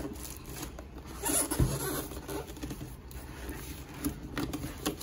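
Cardboard boxes being handled: a laptop's inner box scraping and rustling as it is slid out of its outer shipping carton, with a thump about a second and a half in and a few sharp knocks near the end.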